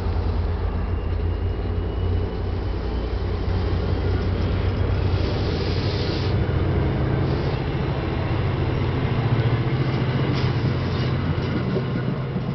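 NJ Transit Comet passenger coaches rolling past at close range: a steady rumble of wheels on rail with a low hum underneath.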